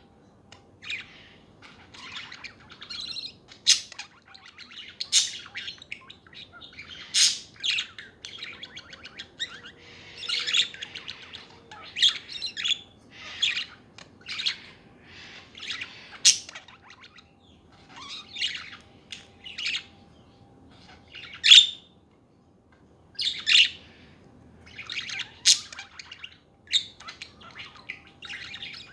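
Budgerigars chattering: a steady run of short chirps, warbles and squawks in irregular bursts, with a few sharp, loud calls.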